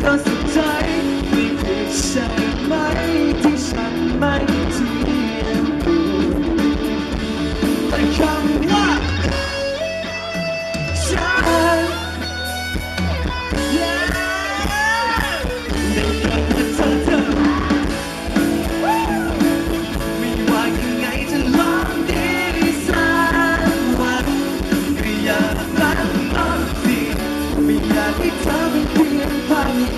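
Live rock band playing on stage: a male singer over electric guitar and drums, heard loud through the PA.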